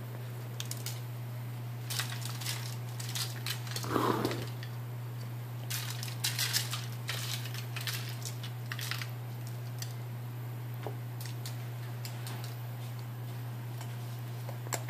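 Sea salt being ground from a small glass grinder over the roast: short spells of crackly crunching, clustered in the first half, over a steady low hum.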